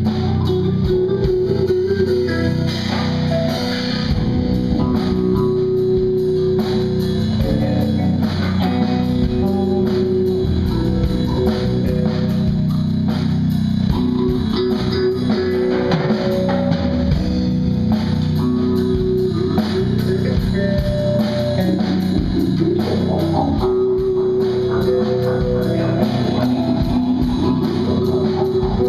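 A live band jamming without vocals: electric guitar, bass guitar and drum kit playing together, loud and steady throughout.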